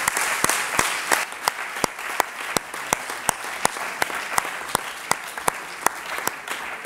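Audience applauding, a crowd of hands clapping, with one set of claps close and distinct at about three a second; the applause slowly dies down toward the end.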